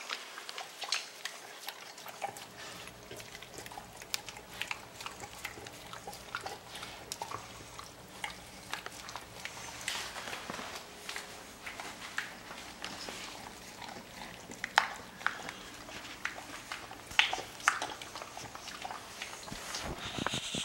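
Two dogs eating from bowls on the floor: irregular crunching and chewing with clicks of teeth and bowls, and a few louder clicks in the second half.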